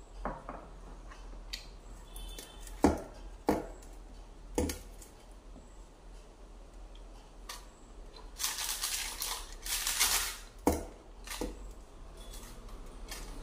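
Eating by hand from a steel plate: scattered sharp clicks of fingers and food against the metal, and a couple of seconds of scraping about two thirds of the way through.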